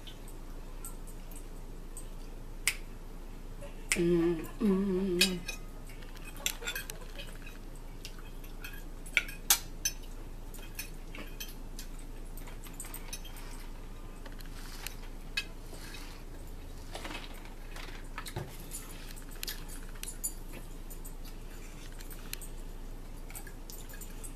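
Metal forks clicking and scraping on plates as two people eat, in scattered irregular taps. A brief voice sound about four seconds in.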